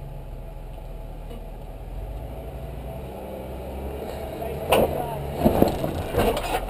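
Jeep Wrangler Rubicon's 3.6-litre Pentastar V6 running at low, steady crawling revs. From about two-thirds of the way in comes a run of loud knocks and clunks.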